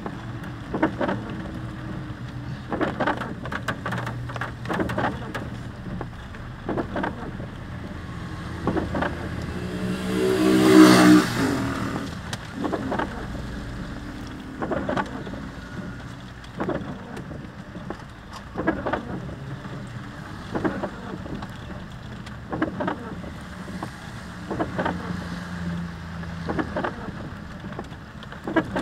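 Car driving slowly on a wet road in the rain, heard from inside the cabin: a steady engine and tyre noise with irregular short knocks and bumps. About eleven seconds in, a louder pitched vehicle sound swells, rising then falling in pitch, for a second or two.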